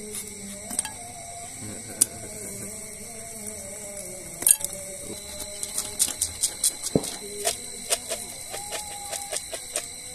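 Popcorn kernels popping in a pan of melted margarine and palm sugar: a few scattered pops at first, then quickening to several pops a second about halfway through.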